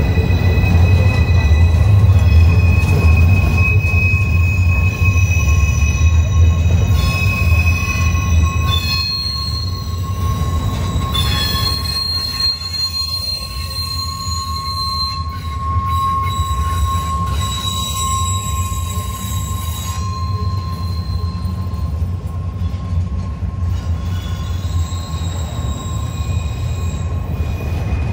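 Freight train rolling along the track with steady, high-pitched wheel squeal over a low rumble. The rumble is loudest for the first several seconds and then eases off.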